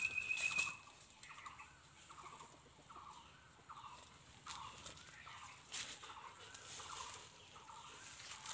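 A small animal hidden in leaf litter giving short, repeated calls, about two a second, with a German shepherd sniffing at it. A few sharp clicks come at the start.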